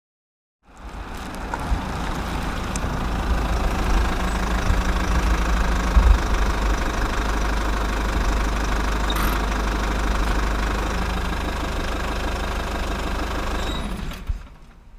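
Bus engine sound effect: a steady, low engine running at an even pitch with a few light clicks. It starts about half a second in and fades out near the end.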